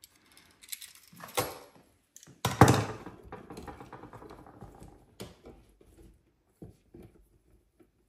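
Electrical wires being pulled and rearranged by hand in a wall outlet box: scattered small clicks and scrapes, with one louder knock about two and a half seconds in.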